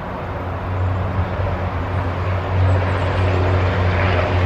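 Road traffic: a steady engine hum with road noise, growing louder about a second in as a vehicle comes nearer.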